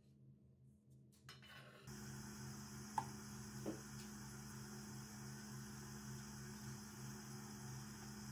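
A chef's knife scrapes briefly on a plastic cutting board, then a steady low hum with faint hiss sets in, with a light clink about three seconds in.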